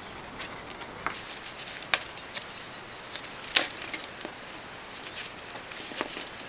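Sheet of printed paper being handled and pressed into shape, with scattered sharp crackles. The loudest comes about three and a half seconds in.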